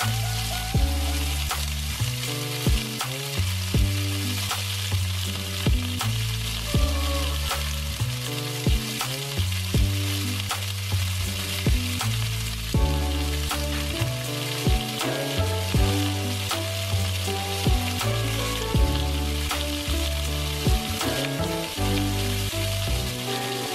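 Beef chunks sizzling as they sear in a wok, mixed with background music that has a bass line and a steady beat of about one stroke a second.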